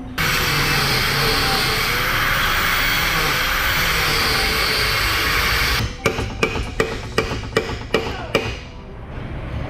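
A loud, steady hissing noise that cuts off suddenly about six seconds in, followed by a quick run of hammer blows, about three to four a second, knocking a seized rear exhaust silencer loose.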